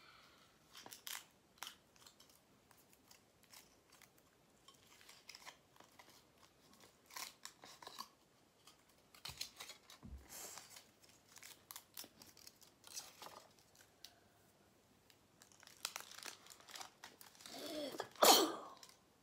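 A package being torn open and crinkled by hand: scattered crackles and rustles, then a louder burst of tearing and crinkling near the end.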